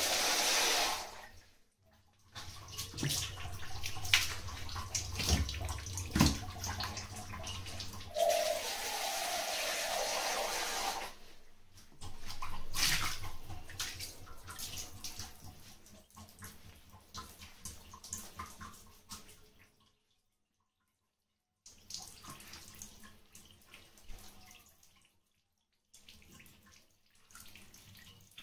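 Water running from a kitchen tap into a sink, with splashing and a few sharp knocks from things being handled under it. It comes in several stretches that cut off abruptly, the later ones fainter.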